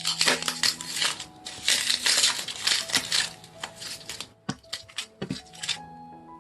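Hands squeezing and pressing slime, making a dense run of crackling pops and clicks for about three and a half seconds, then scattered single pops.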